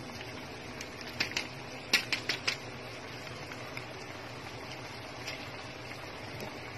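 A plastic sachet of caldereta sauce mix crinkling in two quick runs of sharp crackles, about one and two seconds in, as it is shaken empty over the pot, over a steady hiss from the simmering pot.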